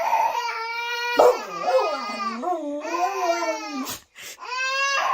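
A dog howling and whining in long drawn-out cries whose pitch wavers and slides down, with a short break about four seconds in before the next cry begins.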